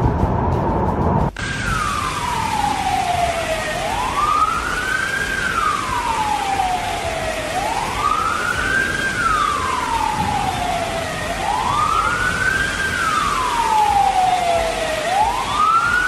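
A rushing noise of cascading water for about a second, then an abrupt cut to a siren wailing: a quick rise and a slow fall in pitch, repeating about every four seconds, over a steady hiss.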